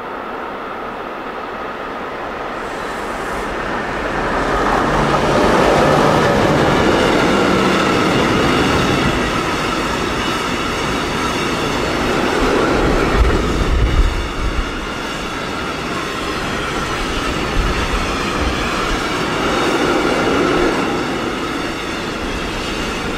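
Freight train of tank wagons passing close by. It grows louder over the first few seconds as the locomotive draws near, then the wagons roll past with a continuous rumble and clatter of wheels on the rails, with a few sharp knocks about halfway through.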